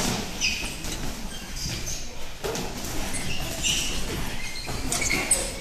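Boxing sparring in a ring: sneakers squeak and shuffle on the canvas, with a few sharp thuds of gloves landing, the loudest near the end.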